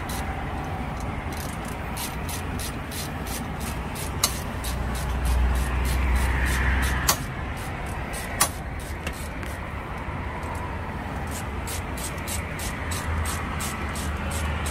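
Steady low vehicle-engine rumble that swells for a couple of seconds around the middle, with a faint rapid ticking about three times a second. Three sharp clicks come from the in-line fuse holder and its wiring being handled and pried at.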